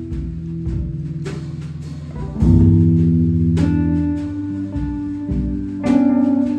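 Instrumental music led by plucked guitar over low bass notes, with a new note or chord struck every second or two and left to ring.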